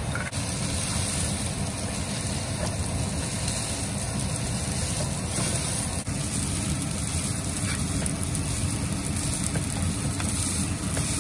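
Steady low rumble and hiss of wok cooking on a gas stove, with light scrapes of a wooden spatula stirring and breaking up cooked rice in the pan.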